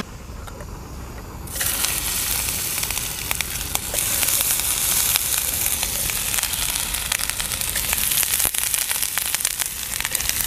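Sausage slices sizzling and crackling in hot oil in a frying pan on a portable gas-canister burner. The sizzle starts suddenly about a second and a half in, as the first slices go into the pan, and keeps up with fine pops as more are laid in.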